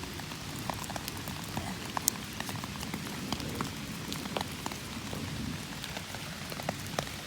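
Steady rain falling, with many separate drops ticking sharply on nearby surfaces.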